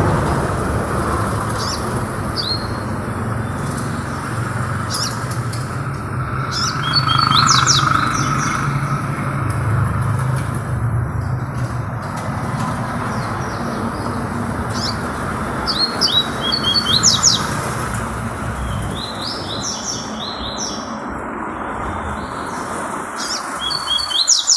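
A songbird singing short, repeated phrases of quick, high chirping notes, with brief gaps between phrases, over a steady low rumble of background noise.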